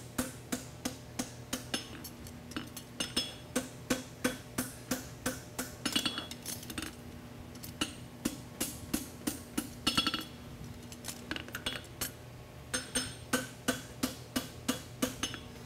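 Hand hammer striking a red-hot steel concave horseshoe bar over the anvil horn, bending the toe of the shoe: steady blows about three a second, with two short pauses. On a couple of strokes the anvil rings.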